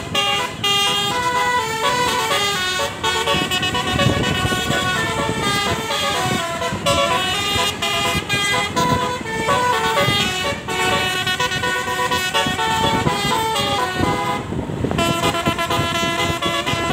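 Bus telolet basuri horn, a multi-trumpet musical air horn, playing a long continuous tune, its notes stepping up and down in quick succession.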